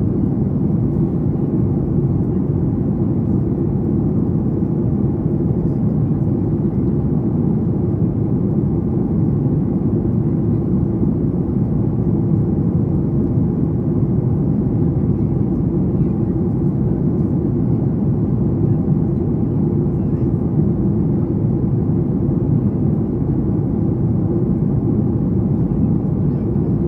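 Steady low rumble inside the cabin of a Boeing 737 MAX 8 in descent: the airflow and CFM LEAP-1B turbofan noise of an airliner in flight, heard from a window seat behind the wing. It holds even, with no changes.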